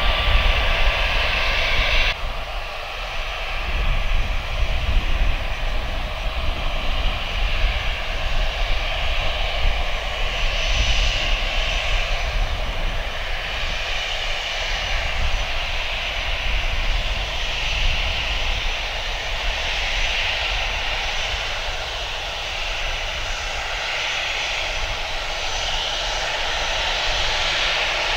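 Airbus A320-214's CFM56 jet engines running at taxi power: a steady hiss and whine with low rumble, building slightly toward the end as the airliner comes closer. About two seconds in, a burst of airband radio static cuts off.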